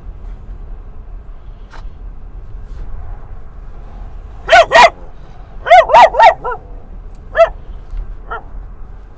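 A dog barking excitedly at other dogs in short bursts: two barks about halfway in, a quick run of four, then two more spaced out, the last fainter. Under them runs the steady low rumble of a moving car.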